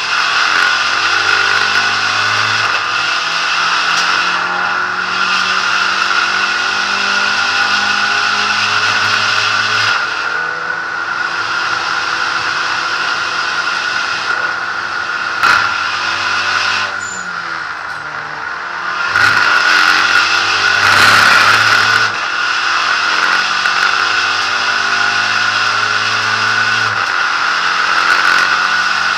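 SEAT Ibiza SC Trophy race car's engine heard from inside the cockpit at racing speed, its pitch climbing and dropping through gear changes and braking. A brief rough rumble comes about two-thirds of the way through.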